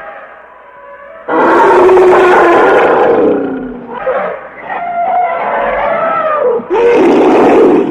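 Woolly mammoth sound effect: loud animal calls, a long one starting about a second in, a quieter wavering call in the middle, and another loud, short call near the end.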